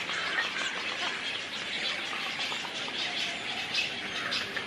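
Many birds chirping and calling at once, a dense overlapping chatter of short high calls.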